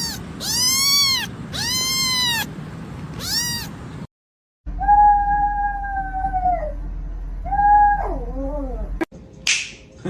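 Domestic cats meowing: four short arching meows in quick succession, then after a brief gap a long drawn-out yowl, a shorter one, and a call that trails off in falling notes.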